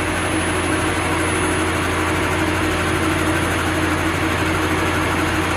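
Homemade Arduino-controlled CNC lathe running steadily on an automatic turning pass, its motor and spindle giving a constant hum with a thin high whine over the noise of the tool taking a very shallow cut on a spinning metal bar.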